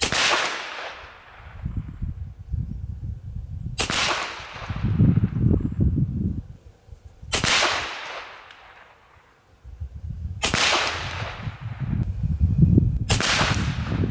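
BinTac T9 .357 semi-automatic PCP air pistol firing five shots, one about every three seconds: each a sharp crack that trails off over about a second.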